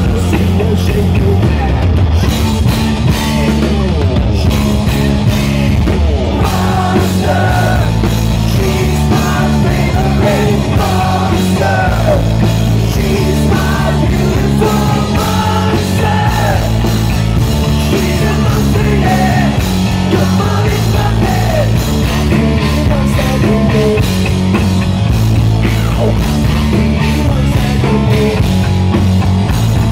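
Live hard rock band playing loud, with amplified electric guitar, bass guitar and drums under a lead vocal, heard from among the audience.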